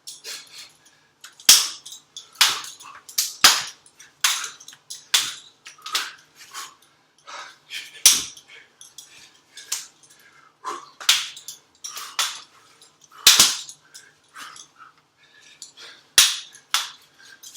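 Repeated sharp clacks of training strikes hitting a hanging wooden jump rope handle, coming in quick irregular runs with a few much harder hits among them.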